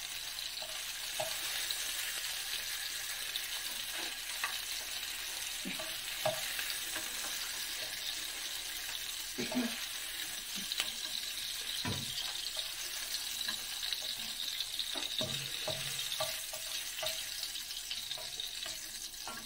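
Oil sizzling steadily in a nonstick wok while sautéed bell pepper and carrot strips are scooped out with a spatula. Short scrapes and knocks of the spatula against the pan come every second or two.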